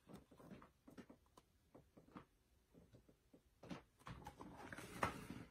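Near silence with faint, scattered clicks and rustles from a hardcover picture book being held up and handled, with one slightly louder click about five seconds in.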